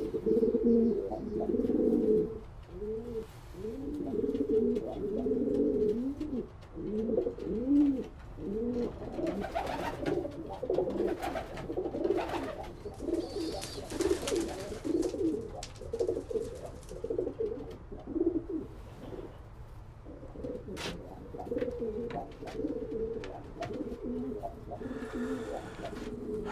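A flock of racing pigeons cooing, many overlapping calls throughout, with scattered sharp clicks and a short burst of rustling about halfway through.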